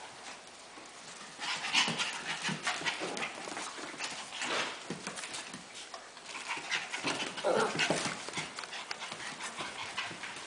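Havanese puppies panting and scuffling, their claws clicking on the hardwood floor, in several louder flurries.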